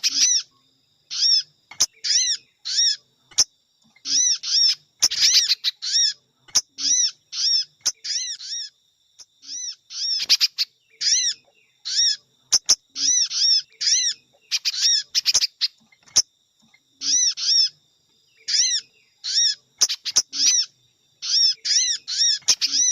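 Bird-lure call recording of sogon and spiderhunter calls: quick, arching, high-pitched chirps repeated in clusters of several notes with short gaps between, plus a few sharp clicks.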